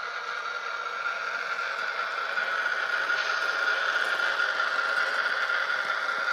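Model train running along the track: a red model diesel locomotive hauling coaches, with wheels rattling on the rails and a steady high motor whine, getting a little louder about three seconds in as it passes close.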